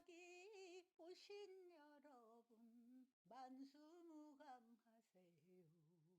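A very faint voice singing or humming a melody in phrases, dropping lower in pitch about five seconds in.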